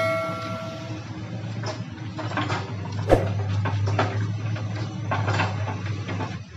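Bulldozer's diesel engine running steadily, with irregular metallic clanks and knocks from its steel tracks on the asphalt, one sharp knock about three seconds in.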